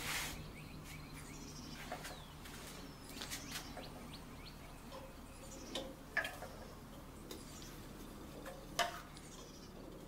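Small birds chirping in the background, with a few sharp clicks and taps from hands working on the garden tractor's engine parts. A faint steady low hum runs underneath.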